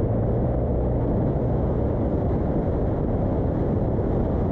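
Jeep Wrangler JK driving over soft desert sand, heard from a camera mounted on the outside of the vehicle: a steady low rumble of the engine and tyres.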